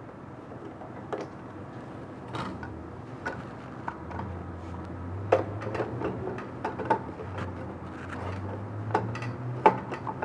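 Scattered light clicks and knocks of a roller being fitted onto a printer's take-up device by hand, with a low steady hum coming in about four seconds in.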